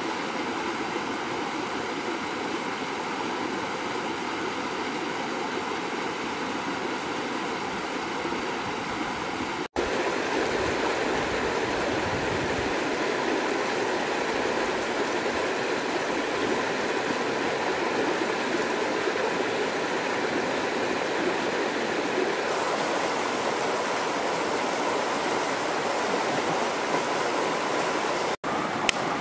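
Shallow stream rushing over rocks, a steady water noise, with two momentary gaps.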